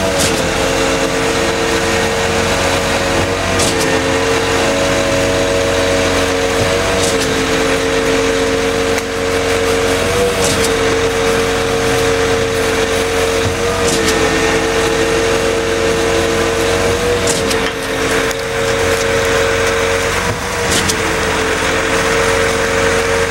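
Concrete pump running steadily under load while it pumps concrete through the boom hose. The engine drone dips briefly with a faint knock about every three and a half seconds as the pump changes stroke.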